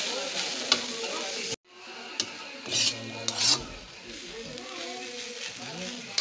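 Bamboo shoot strips sizzling in a wok as a metal spatula stirs and scrapes them around the pan, with a few louder scrapes in the middle. The sound drops out for a moment about a second and a half in.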